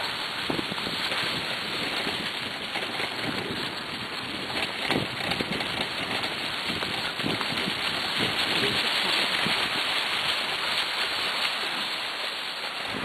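Steady rushing noise of a wheeled dog rig and a team of huskies running over a trail thick with dry fallen leaves, full of small irregular crackles, with wind on the microphone.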